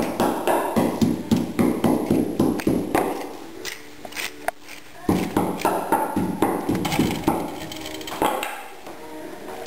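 A glass seasoning shaker shaken over a raw pork chop: fast rhythmic clicking taps, about four or five a second, in two runs with a short pause about three seconds in.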